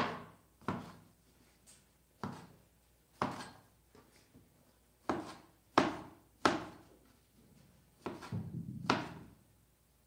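Wide-bladed kitchen knife chopping on a wooden cutting board. Single sharp chops come roughly a second apart, then a quick run of chops near the end.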